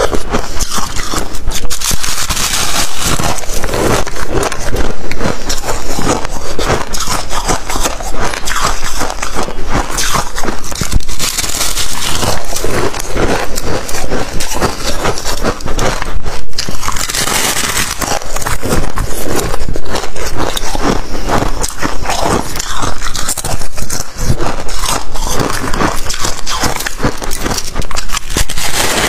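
Freezer frost and ice being bitten and chewed close to the microphone: dense crunching and crackling that keeps on without a break.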